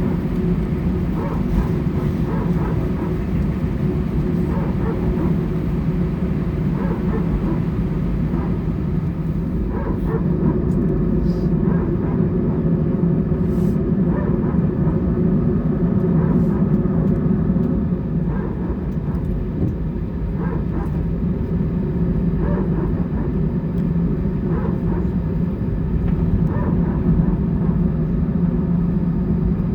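Airbus A320's jet engines heard inside the passenger cabin as a steady low rumble, holding an even level rather than spooling up, as while taxiing.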